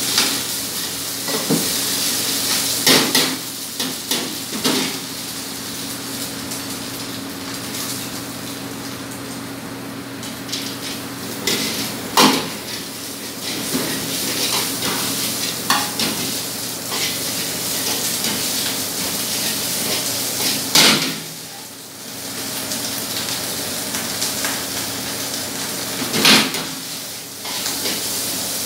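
Stir-frying in a steel wok over a gas burner: a steady sizzle, with a metal ladle scraping and clinking against the wok and a few louder clangs. A steady low hum runs underneath.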